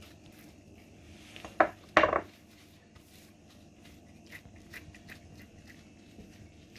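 Kitchenware clattering: two sharp knocks of a dish or utensil about a second and a half in, the second a little longer, then only faint light taps.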